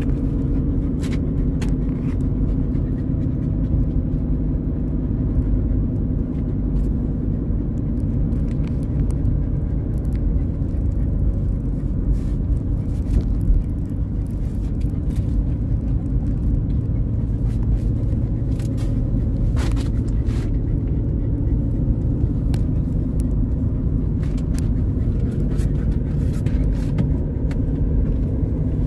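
Steady engine and road rumble inside a moving car's cabin, with a few light clicks here and there.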